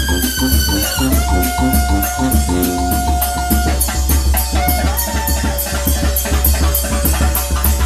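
Nicaraguan chichero band playing a brass dance tune: horns hold long notes over a quick, steady beat of snare drum, bass drum and cymbal.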